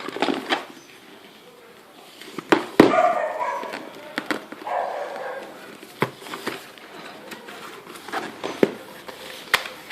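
Cardboard box being opened and its contents handled: scattered knocks and clicks, the loudest about three seconds in.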